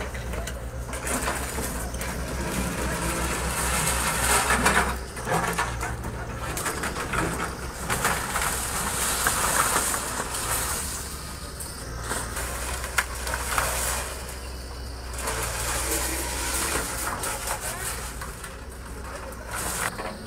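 Diesel engine of a hydraulic excavator running steadily, with scraping, creaking and crashing of timber formwork and steel reinforcing bars as the bucket tears them out of a concrete foundation. The clatter swells and falls in waves.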